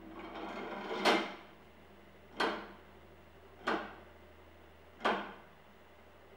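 Mechanism of an electric kinetic painting (belt-driven iron wheels, a metal rod and a swinging wooden stick) at work: a rising scraping noise ending in a loud clack about a second in, then three sharp knocks a little over a second apart, over a faint steady hum.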